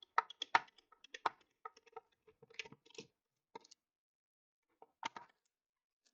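Irregular small clicks and taps of tools and plastic parts as the camera's case and internals are taken apart, thick for the first few seconds, then a pause and a few more taps about five seconds in.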